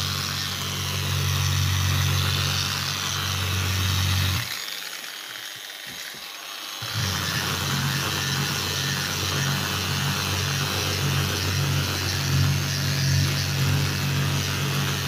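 Milwaukee cordless rotary polisher running steadily as its round pad wet-sands a scratch out of a vanity sink top. About four seconds in, the motor stops for roughly two and a half seconds, then starts up again.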